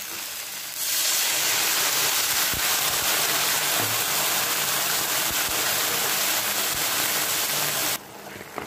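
Water poured into a hot frying pan of dry-fried okra, hissing loudly as it hits the pan and boils into steam. The hiss starts about a second in after a quieter frying sizzle and cuts off suddenly near the end.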